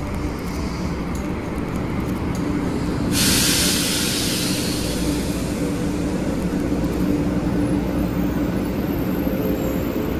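A 500 series shinkansen pulling slowly into the platform, a steady running rumble with a faint held tone. About three seconds in, a sudden hiss starts and fades over a couple of seconds.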